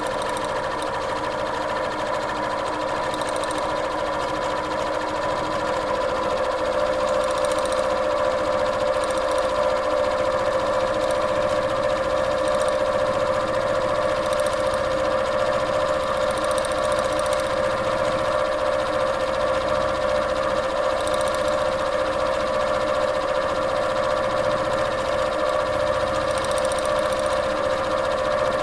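Sewing machine running continuously at speed while stitching free-motion quilting, with a steady motor tone. It gets slightly louder after about six seconds.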